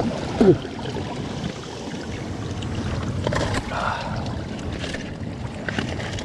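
Steady wind and water noise on the open sea, with a few sharp knocks and a short falling cry about half a second in.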